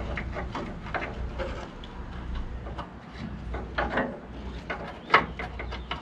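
Tail-light wiring harness rustling and scraping as it is fed down through the pickup's tail-light opening, with scattered clicks and a sharp knock about five seconds in.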